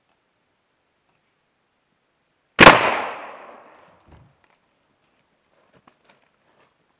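A sound cork fired from a National 350 Magnum spring air rifle goes off with a single loud bang about two and a half seconds in. Its echo dies away over about a second.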